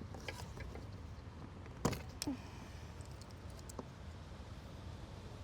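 A few light clicks, then two sharp clicks about two seconds in, the first the loudest, from parts being handled and fitted during the washer reservoir install, over a low steady hum.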